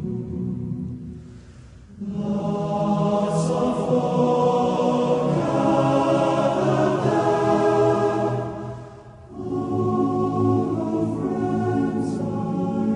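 Slow choral music: a choir singing long held chords, with brief breaks between phrases about two seconds in and again about nine seconds in.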